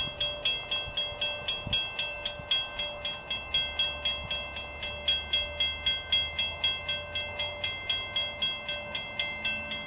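Railroad grade-crossing warning bell ringing steadily, about four strokes a second, signalling an approaching train, with a low hum underneath.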